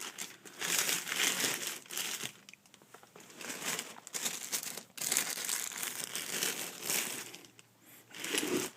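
Packaging crinkling and rustling in irregular bursts as a subwoofer is unwrapped by hand, with a quieter pause in the middle.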